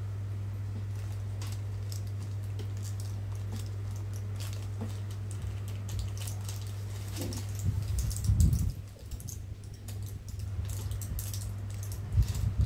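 Light clicks and taps from hands handling a small plastic item on a table, with a louder low thump about eight seconds in, over a steady low hum.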